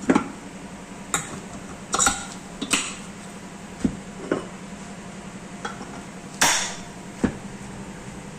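Metal parts of a ceiling fan knocking and clinking as they are handled and fitted together: about ten separate knocks at uneven intervals, with a longer rattle about two-thirds of the way through. A steady low hum runs underneath.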